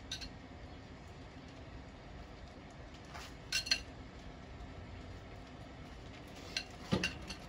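A basting brush knocking against a glass bowl while glaze is brushed onto fish fillets: a few light clinks, a pair together midway and a small cluster near the end with one duller knock.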